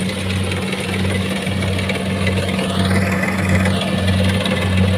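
Rice combine harvester's diesel engine running steadily under load as it cuts and threshes, a low hum that pulses about twice a second over a dense clatter of working machinery.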